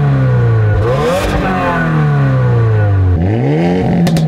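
Two turbocharged sports sedans, a 2022 Subaru WRX with its flat-four and a 2022 Hyundai Elantra N with its 2.0-litre turbo inline-four, revved in turn at the exhaust. The engine note falls away, blips up about a second in and falls again. About three seconds in a second engine revs up and holds, with a few sharp cracks near the end.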